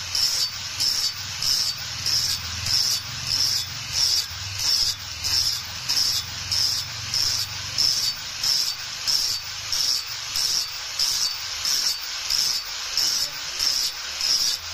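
Rhythmic abrasive strokes on a steel blade, a little over two a second, each a short hissing rasp, over a faint low hum.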